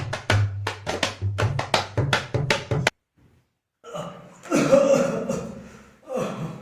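Background music with a quick drum beat, cut off about three seconds in. After a short gap comes a loud, drawn-out vocal sound from a person that fades away, then a shorter one.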